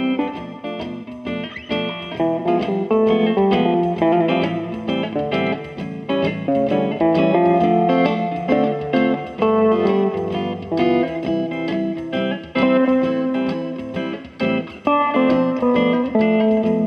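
Höfner Wandergitarre, a small parlour-size acoustic guitar, played through a single-coil pickup: a continuous run of picked notes and chords.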